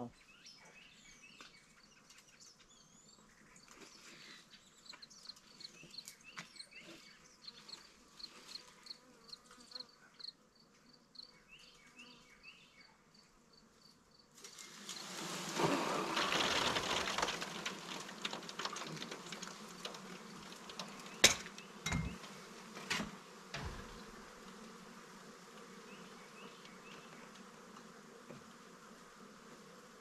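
Honeybee swarm: faint chirps at first, then about halfway a sudden surge of buzzing and rustling as the swarm is knocked from the tree branch into a wooden nuc box, easing off over the following seconds. A few sharp knocks come shortly after the surge.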